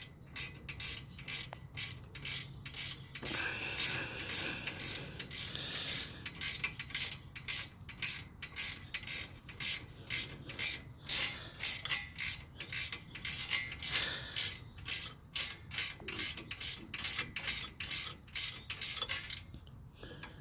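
Ratcheting wrench clicking in quick, even strokes, about two a second, as a bolt is tightened down; the clicking stops near the end.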